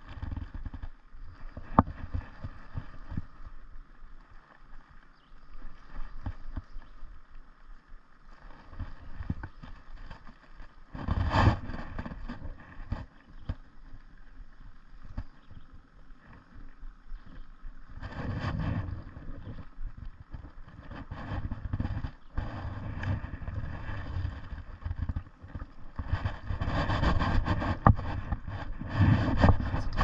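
Spinning reel being cranked to bring in a hooked fish, with frequent small clicks of reel and rod handling and several louder bursts of rushing noise, the longest near the end.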